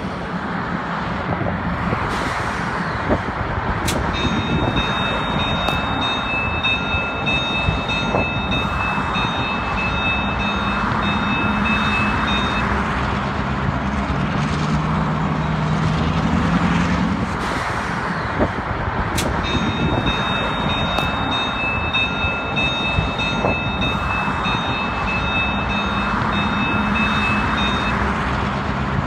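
Diesel locomotives, a CN GP38-2 among them, running at low speed through a rail yard, a steady engine drone whose pitch shifts partway through. Twice, for about eight seconds each, a high steady ringing tone sounds over the engines.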